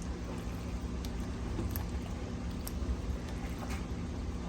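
Steady low hum with a few faint clicks as a spoon stirs the chicken and pasta in the slow cooker.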